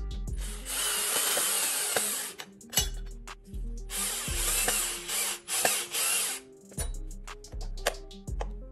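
Cordless drill driving screws to fasten a window blind's mounting bracket, running in several stop-start runs, the motor spinning up and stopping each time.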